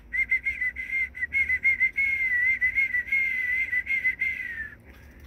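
A man whistling one long, wavering, fluttering note, held for about four and a half seconds before trailing off slightly lower. It is a whistle meant to call red-bellied woodpeckers down.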